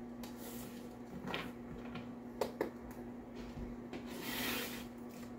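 Tarot card decks handled on a wooden tabletop: a few soft taps as cards are set down, then a brief rustling slide of cards near the end, over a faint steady hum.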